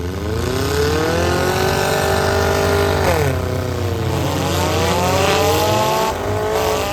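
Demolition derby cars' engines revving hard. The pitch climbs in the first second and holds, falls away about three seconds in, then climbs again with more than one engine heard at once.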